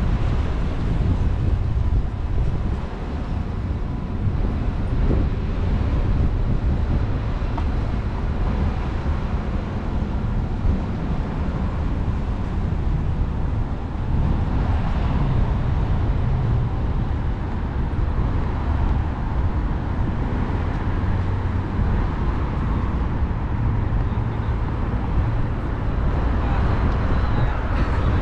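Steady city street ambience: passing road traffic mixed with wind rumbling on the microphone.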